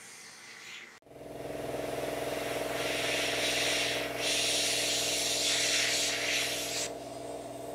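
Airbrush compressor motor starting about a second in and settling into a steady hum. Over it the airbrush hisses as it sprays paint, with a short break partway through, and the hiss stops about a second before the end.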